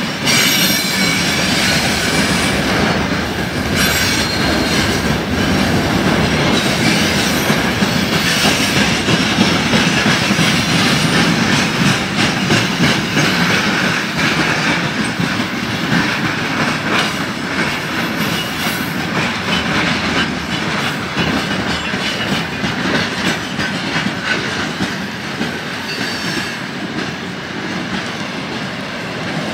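Freight train of tank wagons passing close by: a steady rumble with steel wheels clattering over the rail joints, easing slightly near the end.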